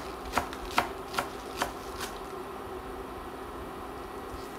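A kitchen knife chopping green onion on a cutting board: about six even strokes, two to three a second, which stop about two seconds in.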